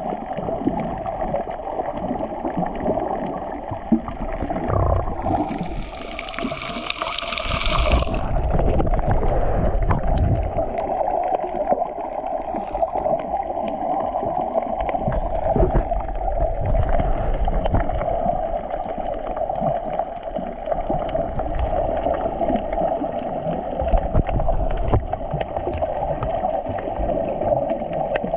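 Steady drone and rush of a boat under way at sea, with water washing along the hull. About five seconds in, a louder hissing rush with a falling tone lasts two to three seconds.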